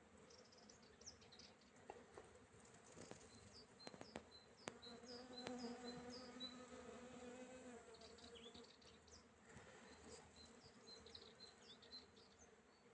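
Honeybees buzzing, one passing close with a steady droning hum from about four to eight seconds in.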